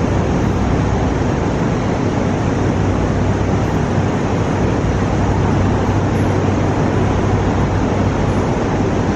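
Steady rushing noise with a low hum underneath, unchanging throughout.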